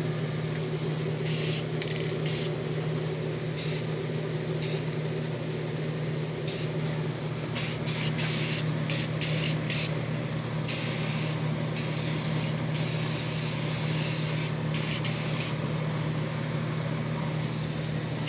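Aerosol spray-paint can hissing in many short bursts, with two longer sprays of a second or two around the middle, over a steady low hum.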